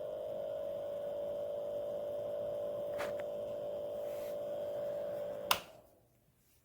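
Small Amazon Basics ceramic space heater's fan motor running with a steady hum, then switched off with a sharp click about five and a half seconds in, the hum dying away quickly after it.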